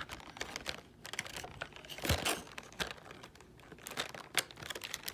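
Clear plastic blister packaging crinkling and crackling as it is handled, with irregular sharp clicks and taps, while an action figure is worked out of its plastic tray.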